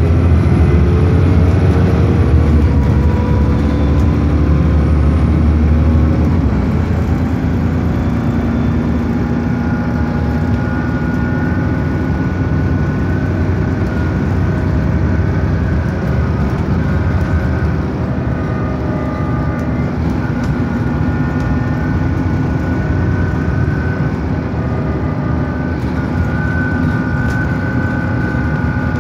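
Bus engine and transmission pulling away: a heavy low rumble with a whine rising in pitch for about the first six seconds. It then settles into steady running, with a constant whine held over the engine noise.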